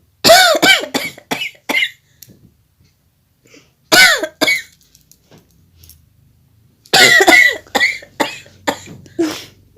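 A woman coughing in three rapid fits of several coughs each, her nose and throat irritated by chili pepper.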